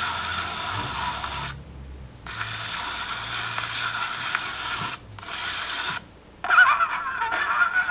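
Razor blade edge riding in the grooves of a spinning vinyl record: a loud scratchy hiss with the record's music faintly coming through, broken by three short gaps, the music's wavering tones clearer near the end.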